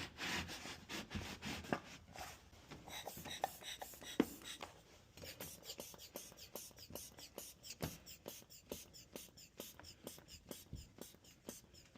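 Door lock being picked open with locksmith tools: faint, light metallic clicking and scratching in the lock. From about five seconds in it settles into an even run of several clicks a second.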